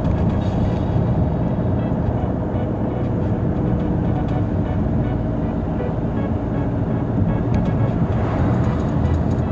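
Steady engine and tyre rumble of a moving car, heard from inside the cabin.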